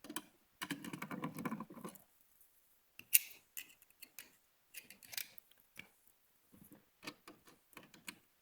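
Small clicks, ticks and rustling from handling a wall dimmer switch and its wires and checking the terminal connections are tight, with a rustling stretch about a second in and a sharper click about three seconds in.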